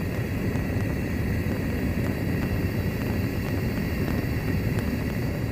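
Gas burner flame burning with a steady, low rushing rumble.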